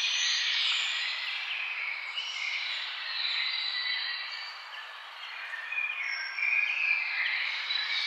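Many birds chirping and singing at once over a steady background hiss, the calls overlapping and growing livelier near the end.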